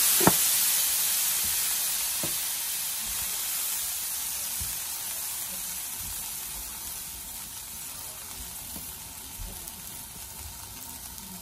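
Smash burgers and buttered bread sizzling on a hot Blackstone flat-top griddle, the sizzle slowly dying down. A sharp click comes just after the start.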